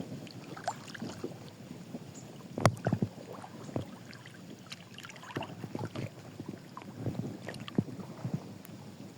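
A series of irregular knocks and taps with some rustling between them, the loudest few about three seconds in.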